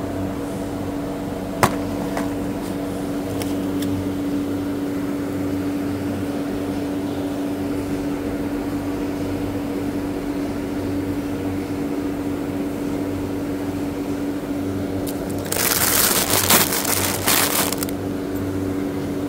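Steady electrical hum of a supermarket's machinery, with a single click about a second and a half in. Near the end comes about two seconds of loud rustling and crinkling.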